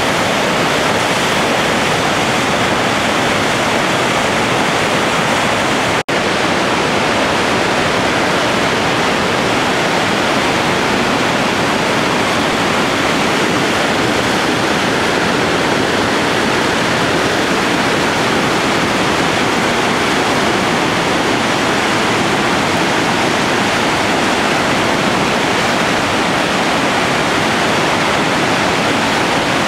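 Merced River whitewater rushing over the rapids at Happy Isles, a loud, steady roar of water with one momentary break about six seconds in.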